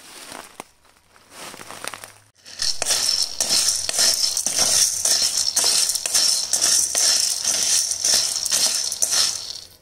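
Dry brown chickpeas (kala chana) rattling and scraping in a metal kadai as a wooden spatula stirs them. The dense rattle starts suddenly about two and a half seconds in, after a quieter stretch.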